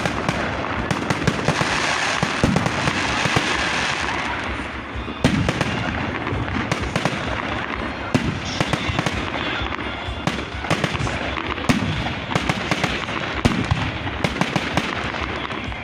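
New Year's fireworks going off thick and fast: frequent sharp bangs of bursting shells over a dense, continuous crackle, the crackle heaviest in the first few seconds.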